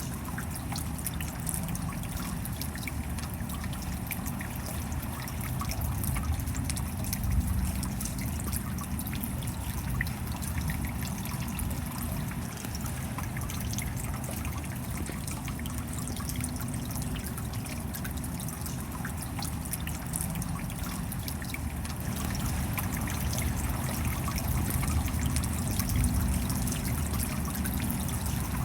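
Steady rain with water trickling and dripping, full of fine drop ticks over a low rushing undertone; it grows a little louder past the two-thirds mark.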